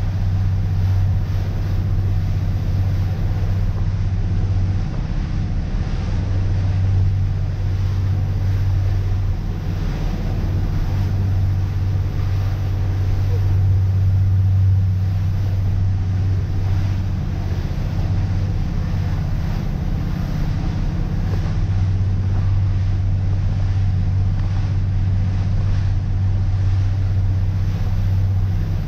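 Cruiser's engine running steadily while the boat is underway at sea, a constant low drone under the rush of wind and water.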